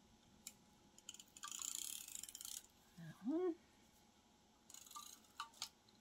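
Handheld tape runner rolled along paper, a fine ratcheting whirr lasting about a second and a half, with a few light clicks and paper rustles of handling. A brief hummed 'mm' in the middle.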